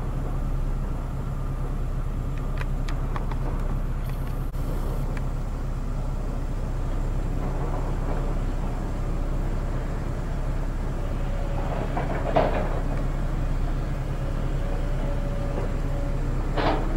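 Hydraulic excavator's diesel engine running steadily while it tears at a collapsed steel building frame, with a few sharp metal clanks and crashes of debris, the loudest about twelve seconds in and near the end.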